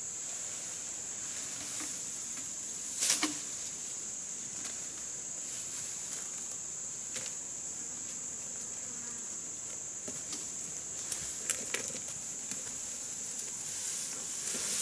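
Insects buzzing steadily at one high pitch. A few sharp clicks or snaps cut through it, the loudest about three seconds in and a small cluster about three quarters of the way through.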